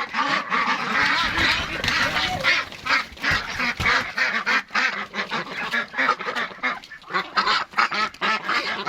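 A flock of domestic ducks quacking, many calls overlapping without a break.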